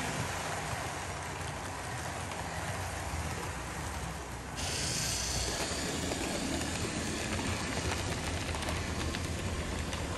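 OO gauge model trains running on the layout track: the steady whirr and rattle of locomotive motors and coach wheels. The sound shifts sharply about four and a half seconds in, as a Class 47 diesel model and its coaches pass close by.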